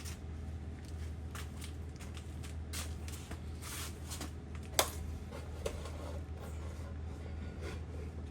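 Handling and rustling sounds as a crankshaft is lowered into an engine block onto freshly lubricated main bearings, with one sharp click nearly five seconds in and a fainter one shortly after, over a steady low hum.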